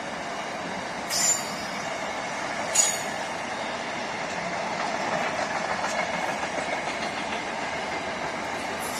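Freight train cars rolling steadily past, with two short high-pitched wheel squeals about one and three seconds in.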